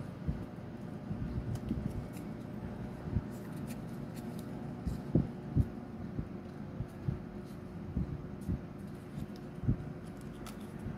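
Paper finger puppet being folded and pressed into shape by hand: scattered soft taps and knocks of the cardstock against the fingers, with a few sharper ones about five seconds in and near the end, over a steady faint hum.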